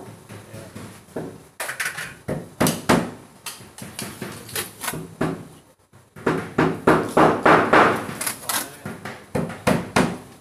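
Irregular knocks and clattering from hand work on plywood practice boards, as lengths of plastic wiring trunking are pressed and fitted onto the wood.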